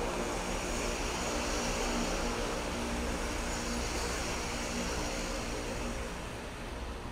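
Diesel-electric freight locomotives working under power, a steady deep engine drone with a rushing hiss over it; the engine note fades about six seconds in.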